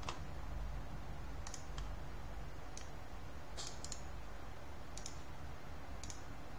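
Computer mouse clicking: several single sharp clicks, unevenly spaced, over a low steady hum.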